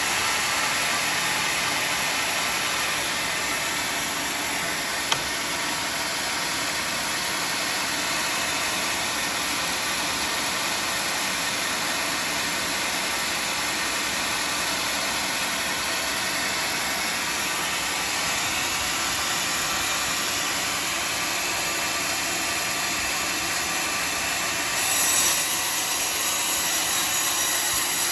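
Band sawmill running steadily as it cuts a teak log, a continuous mechanical din with a hissing saw sound. About 25 seconds in, the sound turns brighter and briefly louder.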